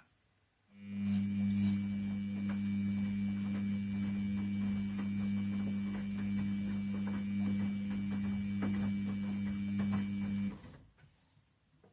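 Washing machine motor turning the drum during a wash cycle: a steady hum with scattered light clicks. It starts about a second in and stops about ten seconds later.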